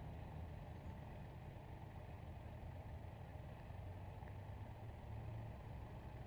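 Honda Gold Wing motorcycles running at low parade speed, a faint, steady low engine rumble.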